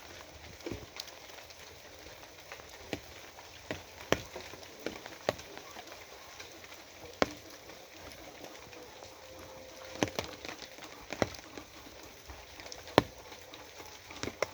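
Steady rain falling, with heavier drops landing at irregular moments as a dozen or so sharp ticks on a hard surface.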